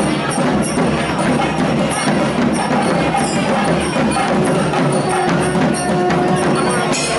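Festival music with busy, clattering percussion, dense and steady; a held tone joins about four seconds in.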